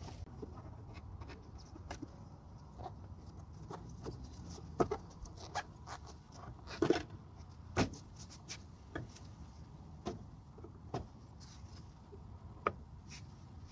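Scattered light clicks and knocks of a plastic tail light housing being slid into its slot and pressed onto its mounting hooks by gloved hands, about a dozen irregular taps with the loudest a little past the middle.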